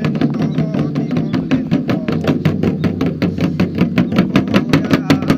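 Fast, steady ritual percussion: sharp strikes at about six or seven a second, with no break.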